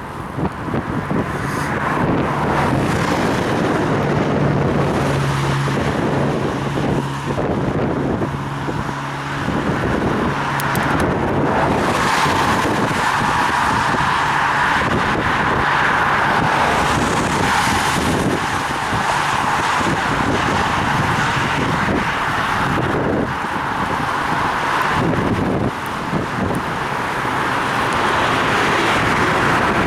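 Road noise while cycling on wet city streets: a steady rush of wind on the microphone and tyres on the wet road, with motor traffic. A vehicle's engine hums alongside for the first ten seconds or so.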